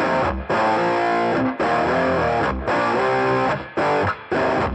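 Background music: distorted electric guitar chords played in blocks of about a second, with short breaks between them.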